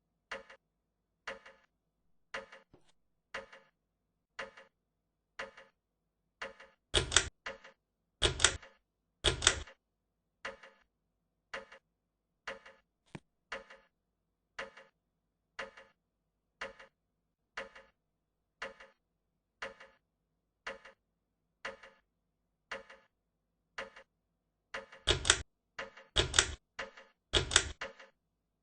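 Antique FASCO Decorator ceiling fan running with a faint hum and a sharp tick about once a second. Two sets of three much louder clacks stand out, one about a quarter of the way in and one near the end.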